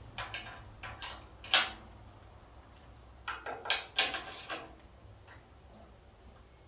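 Hand tools and steel bolt hardware clinking and scraping in a handful of short, sharp clicks, the loudest about a second and a half and four seconds in, as bolts are fitted and tightened by hand on a truck frame.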